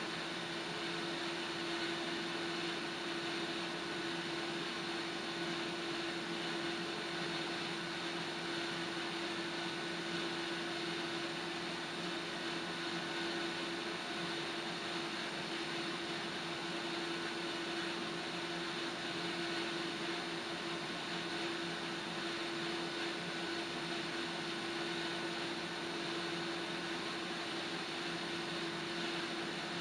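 Gas stove burner heating a kettle of water: a steady hiss with a steady low hum, unchanging throughout.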